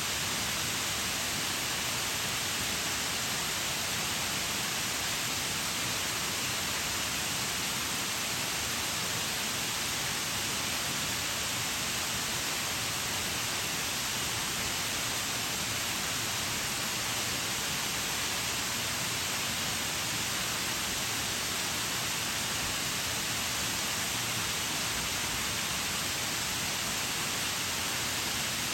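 Shiraito Falls waterfall: the steady rush of falling water, an even, unbroken hiss strongest in the upper range.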